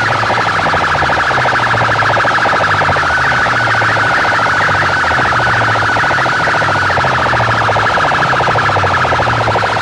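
Loud DJ dance music through a large outdoor speaker-box system: a fast-warbling, siren-like synth tone over a stepping bass line.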